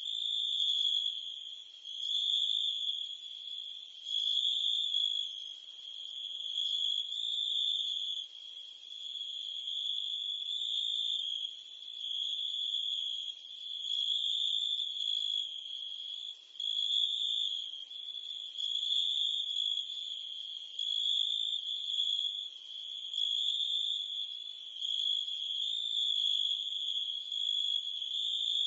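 Crickets and cicadas chirping together: a continuous high-pitched insect trill that swells and eases every couple of seconds.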